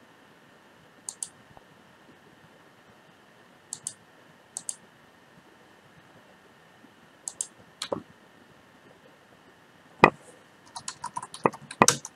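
Computer mouse clicked several times, most clicks a quick press-and-release pair, then near the end a quick run of keystrokes on a computer keyboard as a word is typed.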